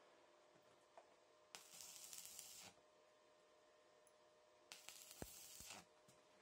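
Stick welder arc sizzling faintly in two short welds of about a second each, with a pause of about two seconds between them, joining steel bed-frame pieces.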